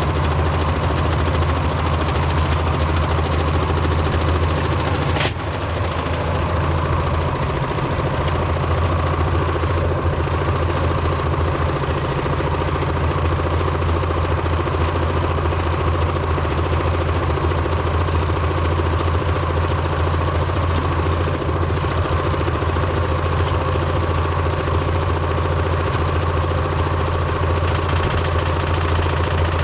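Old washing machine running with bricks loaded in its drum, a loud steady machine drone with heavy vibration, and a brief click and dip in level about five seconds in.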